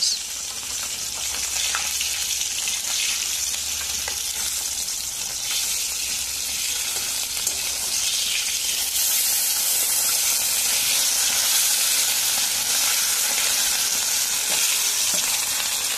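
Pieces of bata fish deep-frying in hot oil in a kadai: a steady sizzling hiss with light crackles, which grows a little louder about nine seconds in.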